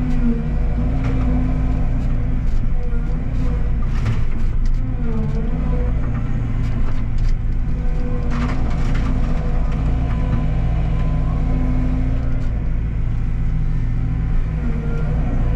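Tracked excavator's diesel engine running steadily under load, with a hydraulic whine that rises and falls as the machine works. A few sharp knocks come about four and eight seconds in.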